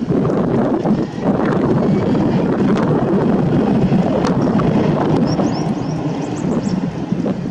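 Wind buffeting the microphone, a loud uneven rushing that rises and falls in gusts.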